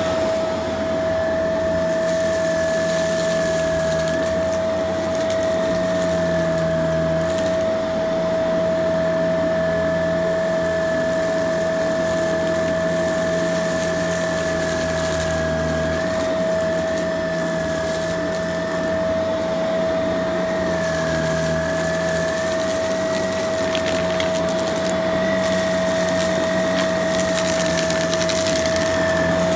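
Shark vacuum cleaner running steadily with a high whine, its pitch wavering slightly now and then as it sucks up fluffy debris.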